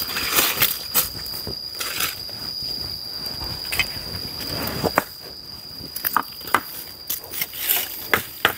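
Footsteps crunching and crackling through forest floor litter, with irregular sharp snaps and a brushing rustle about four to five seconds in. A steady high insect drone runs underneath.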